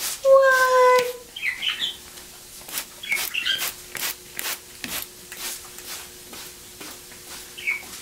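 Parrots bathing in a mister's spray: wet wings flapping and rustling in quick, uneven clicks, with a few short, high squeaky chirps. A steady-pitched "What?" comes in the first second, and a faint steady hum starts about two seconds in.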